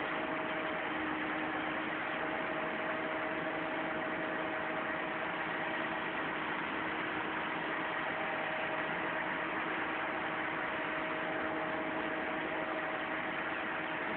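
Kato crane's engine idling steadily, an even running noise with a faint constant hum and no revving.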